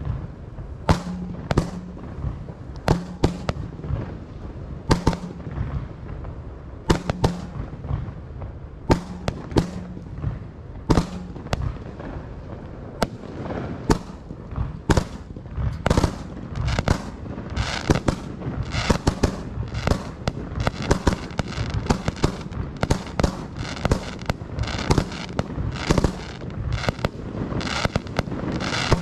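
Aerial fireworks bursting: sharp bangs about every two seconds at first, then thicker volleys with crackling over the second half.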